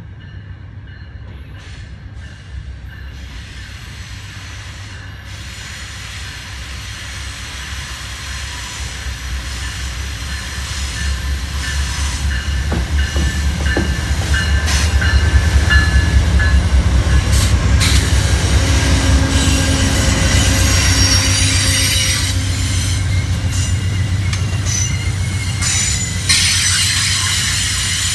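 Amtrak Capitol Limited passenger train led by two GE Genesis diesel locomotives approaching and passing on a curve. The locomotives' diesel rumble builds to its loudest about halfway through as they go by. The double-deck Superliner cars then roll past with wheel noise and high-pitched squealing from the wheels on the curve.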